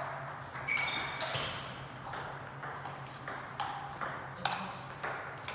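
Table tennis rally: the ball clicking off the bats and the table in quick, uneven alternation, each hit ringing briefly in a large hall.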